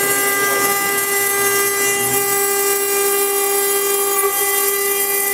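High-speed spindle of a CNC-1218 stone-engraving router running steadily with a high-pitched whine over a hiss, its bit cutting a water-cooled stone slab.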